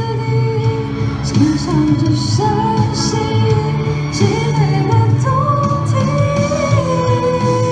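A woman singing a Mandarin pop ballad into a microphone, amplified over a backing track, ending on a long held note.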